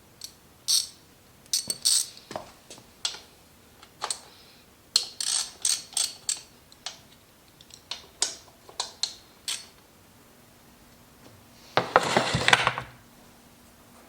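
Metal hand tools and small metal parts clicking and clinking in sharp, separate knocks, with a rapid rattling burst about a second long near the end.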